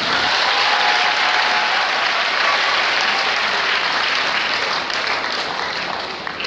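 Audience applauding steadily, dense clapping that eases off a little near the end.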